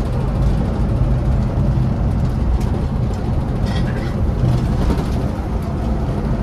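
Scania bus under way on the road: a steady, low engine drone mixed with road rumble.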